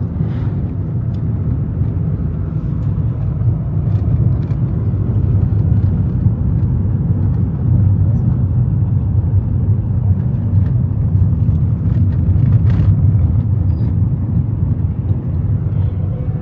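Car running on the road: a steady low engine and tyre rumble, with a few faint clicks.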